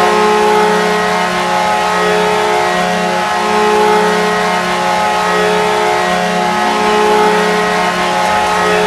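Minnesota Wild arena goal horn sounding one long, steady, low blast, as it does after a home goal.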